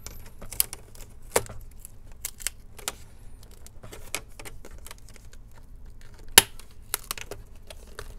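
Flat metal prying tool clicking and scraping against a plastic laptop screen bezel as the bezel is pried loose from its double-sided adhesive tape: irregular sharp clicks, the loudest about six seconds in.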